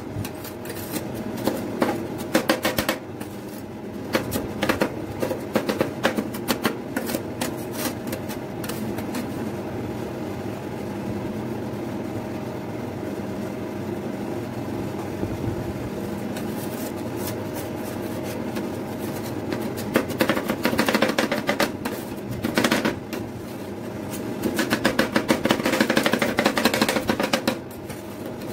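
Metal spatulas chopping and scraping on a stainless-steel cold plate, making fast runs of sharp clacks near the start and again over the last several seconds, while biscuits and the milk base are chopped together for rolled ice cream. Between the runs there is a steadier hum with fewer strikes.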